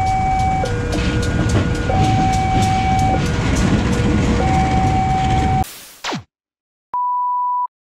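A level-crossing alarm sounds in two alternating tones while a CC 201 diesel locomotive passes, its engine rumbling under regular wheel clacks. About five and a half seconds in the sound cuts off, and near the end a short electronic beep plays.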